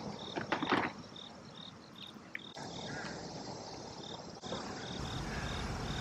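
Insects chirping: a regular high chirp about twice a second over a faint, steady higher buzz. A few light clicks come in the first second.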